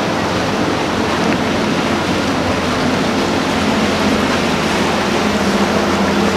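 Outboard motors of a Contender center-console boat running at speed: a steady engine drone under the rush of the hull and wake through the water.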